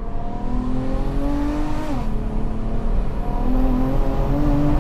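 BMW F80 M3's single-turbo S55 straight-six pulling hard, heard from inside the cabin: the revs climb, drop sharply at a gear change about two seconds in, then climb again.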